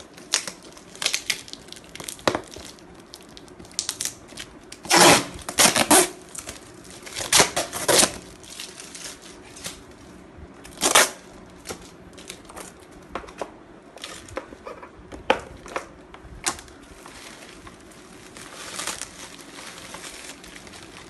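Brown packing tape being ripped off a bubble-wrap parcel and plastic bubble wrap crinkling and rustling in the hands, with irregular crackles and several loud rips in the first half.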